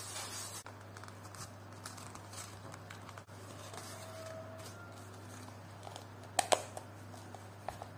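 Leather card wallet being handled: a soft rubbing of cloth on leather at the start, light handling as it is opened, then its brass snap fastener pressed shut with two sharp clicks in quick succession about six and a half seconds in, and a smaller click near the end.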